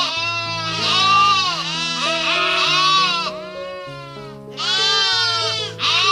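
Lamb bleating repeatedly, high wavering calls with a break of about a second midway, over background music with held low notes.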